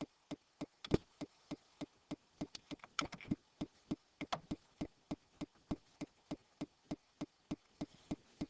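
Steady, evenly spaced ticking, about three ticks a second, like a clock. A few louder, irregular clicks fall among the ticks about a second in and again around three to four seconds in.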